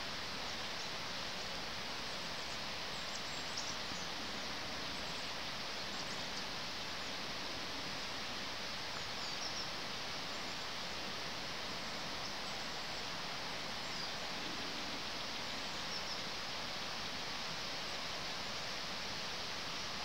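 Steady rural outdoor ambience: an even hiss with no gusts or changes, and a few faint, short, high bird chirps scattered through.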